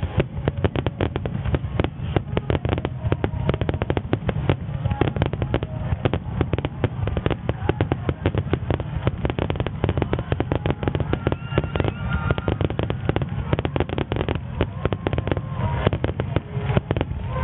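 Super Starmine aerial fireworks shells bursting in a rapid, unbroken barrage: a dense run of bangs and crackles, several a second, over a continuous low rumble.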